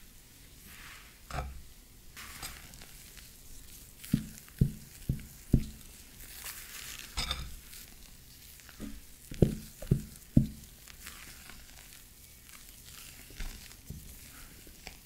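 Silicone spatula folding and scraping thick cake batter in a glass bowl: soft wet swishes and scrapes, with four quick dull knocks about four seconds in and three more around nine to ten seconds in.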